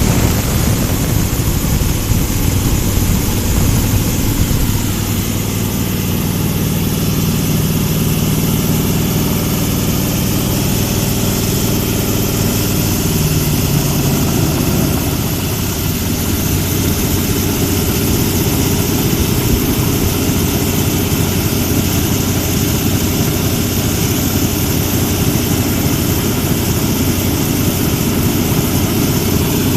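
Corn grinding machine for animal feed running with a steady, loud mechanical hum. Its running note sags briefly about halfway through, then steadies again.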